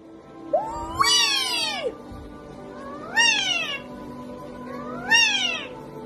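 A white Indian ringneck parakeet mimicking a cat: three drawn-out meows about two seconds apart, each rising then falling in pitch, the first the longest.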